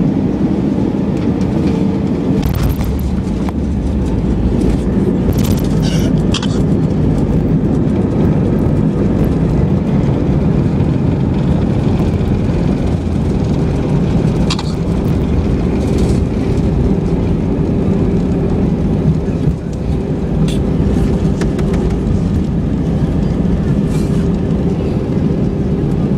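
Steady loud roar of an Airbus A320-216's CFM56 engines and the runway rumble heard inside the cabin during the landing roll, with the thrust reversers open. The low rumble grows about two seconds in, and a few short rattles sound throughout.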